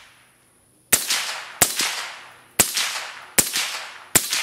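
Five suppressed .30 Carbine shots from an Inland M30-P pistol (M1 Carbine action) fitted with a Bowers Vers 9S suppressor, fired at an even pace about a second apart starting about a second in. Each shot is a sharp crack with a fading echo.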